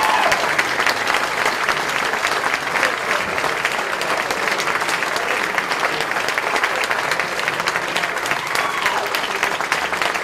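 A banquet audience applauding steadily, the sustained clapping of a full room welcoming an award winner to the stage.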